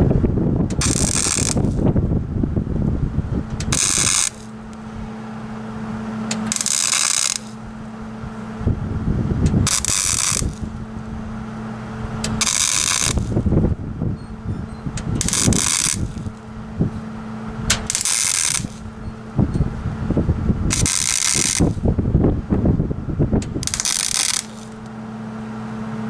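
Welder tack-welding a sheet-steel patch panel: repeated stretches of crackling arc, each a second or a few seconds long, with a steady hum in the gaps between them.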